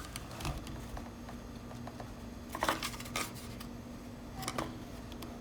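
Daniel Defense 32-round polymer AR-15 magazine scraping and clicking against the rifle's magazine well as it is worked in at a bad angle without seating: a few scattered clicks and scrapes.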